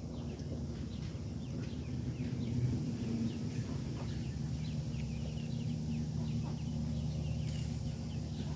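Ducklings peeping: many short, high, falling chirps in quick succession, over a steady low hum.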